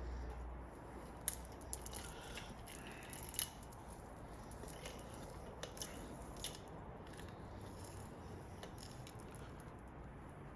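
Scattered faint clicks and light clinks of two bicycle chains being handled and lined up link by link, over a steady low hum; the clicks stop after about seven seconds.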